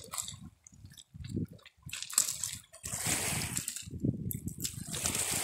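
Small waves lapping and washing over a pebble lakeshore in irregular surges, the fullest about three seconds in.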